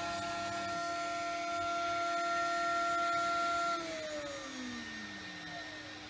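CNC milling spindle running with a steady whine of several tones, which falls away in pitch about four seconds in as the spindle winds down. A lower steady hum carries on under it.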